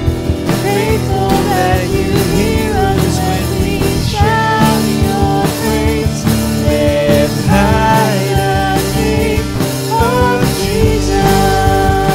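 A contemporary worship band playing. A man and a woman sing the melody together over a drum kit and bass, ending on a long held note.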